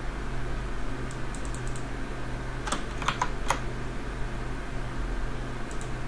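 Steady whir of a mini-ITX PC's cooling fans with its Ryzen 9 7900 under full Cinebench R23 multi-core load, a low hum under a hiss. A quick cluster of four sharp clicks comes about three seconds in, with fainter ticks around a second in and near the end.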